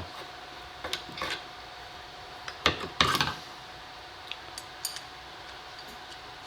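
A few scattered light clinks and knocks of metal parts and tools being handled on a workbench, over a faint steady hum.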